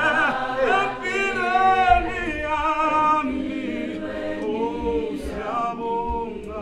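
Mixed choir of men and women singing a cappella in harmony, with a male lead voice in front. The singing grows quieter toward the end.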